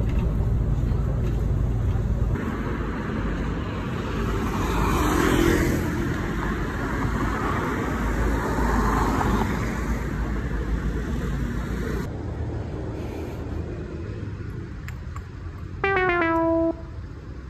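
Road traffic: the low rumble of a moving bus, then the steady noise of city street traffic with cars passing. Near the end comes a short, single-pitched toot, like a horn.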